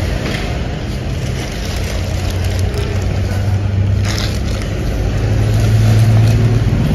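Low, steady motor-vehicle engine rumble with a held hum, growing louder over the last couple of seconds, with a brief click or two about four seconds in.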